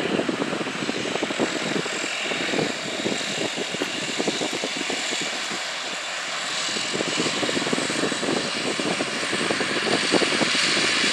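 Embraer 120 Brasilia's twin turboprop engines and propellers running at taxi power: a steady propeller drone with a fluttering buzz and a hissing turbine whine. It grows louder near the end as the aircraft moves along the taxiway.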